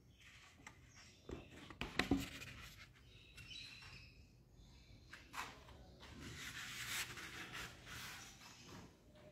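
Light handling knocks and rustling: a few scattered knocks, the sharpest about two seconds in, then a hissy rustle through the second half.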